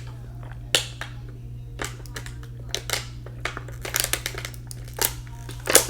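Close-miked chewing and wet mouth smacks of someone eating ramen noodles: irregular sharp clicks, coming more often near the end. A steady low hum runs underneath.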